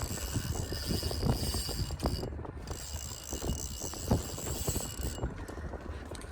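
Fishing reel being cranked, giving a run of uneven mechanical clicks, over a low rumble of wind on the microphone.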